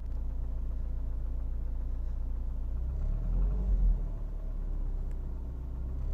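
Mercedes-Benz M111 four-cylinder petrol engine running with a knock, revved briefly about three seconds in and dropping back to idle.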